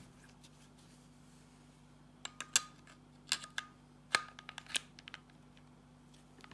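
Steel parts of a Husqvarna M/40 pistol clicking and scraping as the barrel and receiver are slid back onto the frame during reassembly. The short metallic clicks come in three quick clusters starting about two seconds in, a few with a brief ring.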